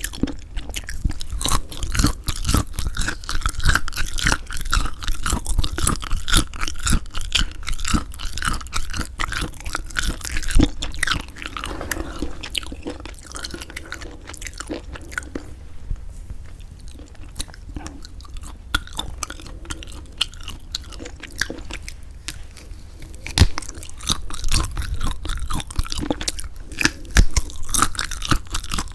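Close-miked chewing of semi-dried squid, a dense run of wet, sticky clicks and smacks as the tough flesh is worked. The chewing turns quieter and sparser in the middle and picks up again near the end.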